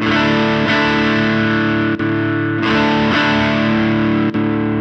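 Electric guitar chords strummed and let ring through a NUX Ace of Tone dual overdrive pedal, its Tube Screamer-style side on with the treble Shine boost engaged. The chords are re-struck a few times, giving a lightly overdriven, sustained tone.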